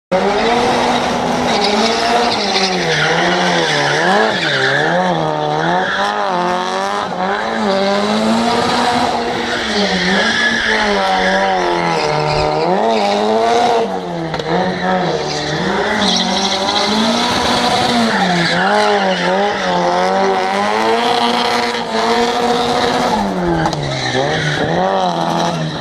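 Drift car engine revving hard, its pitch swinging up and down again and again as the throttle is worked, over the long screech of the rear tyres spinning and sliding through a continuous drift.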